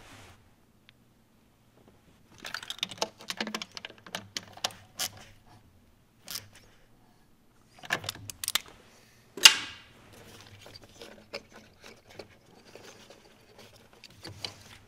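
Metal hand tools clicking and clinking while a fuel injector hold-down bolt is tightened: runs of quick clicks, and one loud sharp metallic clank with a brief ringing about nine and a half seconds in.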